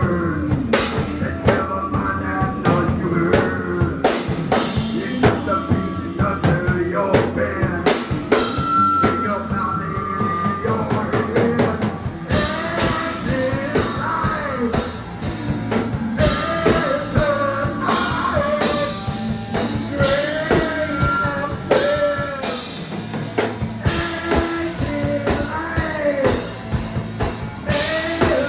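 Rock music with a drum kit and a singing voice.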